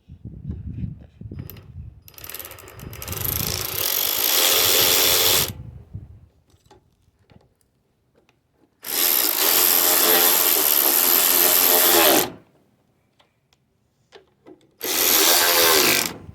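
Power drill driving in the carburetor's mounting bolts, run in three bursts, the last one short, its motor pitch rising and falling with the trigger. A few light knocks of handling come first.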